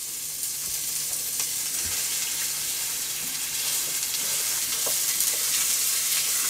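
Raw ground beef sizzling in hot cooking oil in a frying pan: a steady frying hiss, with light scrapes and taps of a wooden spatula breaking up the meat.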